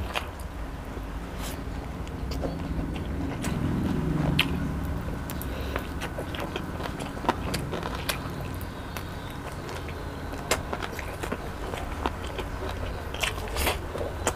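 Close-miked eating sounds of a person chewing chicken and licking his fingers: scattered short clicks and smacks at irregular intervals. A steady low background rumble runs underneath, swelling for about a second around four seconds in.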